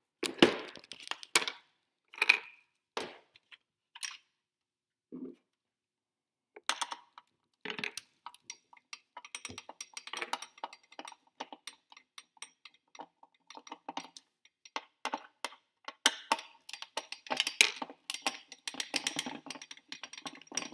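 Hard plastic being handled with a few knocks at first, then a screwdriver backing screws out of a hollow black plastic display base: many small clicks, scrapes and plastic creaks, busiest near the end.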